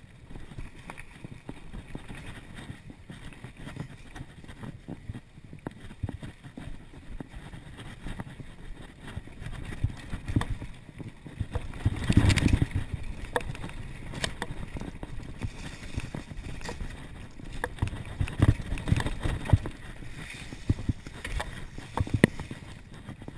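Mountain bike riding fast down a dirt singletrack: tyres rumbling over the dirt and the bike clattering and ticking over bumps, with louder, rougher stretches about halfway through and again near the end.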